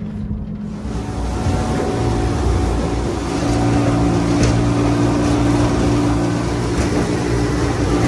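Evinrude 200 outboard motor running hard as the boat moves at speed, with the rush of water and wind. It grows louder over the first few seconds, then holds a steady drone.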